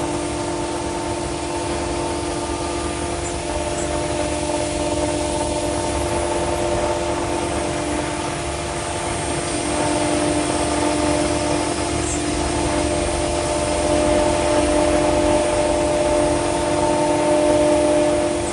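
CNC router spindle cutting V-grooves into an aluminium composite panel, a steady whine over a constant rushing noise. It grows slightly louder at times as the cut goes on.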